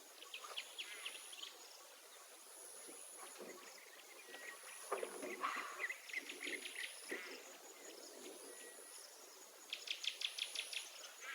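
Faint outdoor ambience: an insect trilling in a thin, high-pitched tone that comes and goes in stretches of about a second, with quick series of high chirps from birds or insects a few times over.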